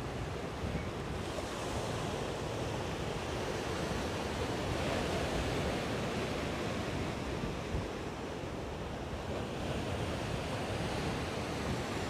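Ocean surf washing in against a concrete seawall: a steady wash of breaking waves and foam that swells a little about five seconds in and again near the end, with wind rumbling on the microphone.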